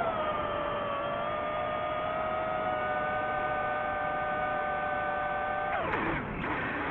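DJI FPV drone's motors and propellers whining at a steady pitch. Near the end the pitch falls sharply and then climbs back as the motors slow and spin up again.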